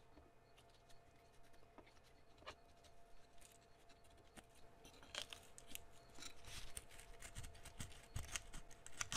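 Faint scattered clicks and scrapes of small objects being handled, growing busier after about five seconds, with a loud thump right at the end.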